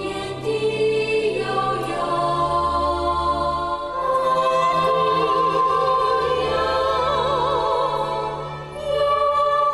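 End-credits theme song: a voice singing long, slow notes with vibrato over a music accompaniment.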